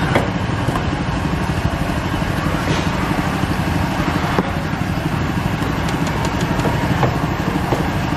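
A small engine idling steadily close by, with a few light clicks of a knife against a metal tray.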